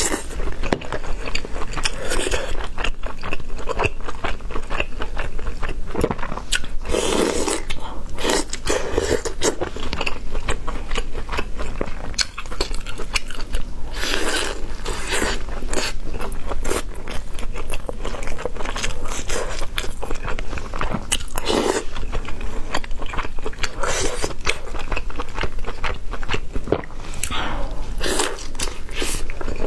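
A person chewing and biting food, loud and close, with a dense run of short smacks and crunches and an occasional louder bite.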